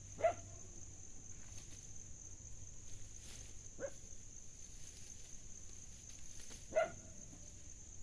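A dog barking three times, single short barks about three seconds apart, over a steady high-pitched whine.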